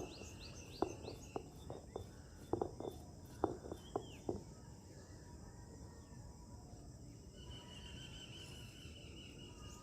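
Irregular knocks of cumin seeds being pounded to powder by hand, about ten in the first half, then stopping. Birds chirp and insects trill steadily outdoors in the background.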